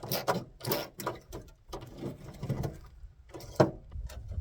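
Hand tools working on a classic car's body: irregular metallic clicks and clanks, with one sharp knock about three and a half seconds in.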